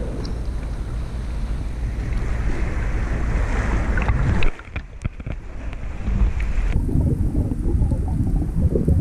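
Sea water sloshing at the surface right against the camera, with a hiss that rises over the first few seconds and cuts off abruptly about halfway through. A few clicks follow, then a dull rumble with the high sounds muffled, as heard with the camera underwater.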